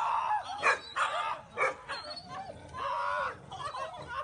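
A dog vocalizing in several short separate calls that bend up and down in pitch.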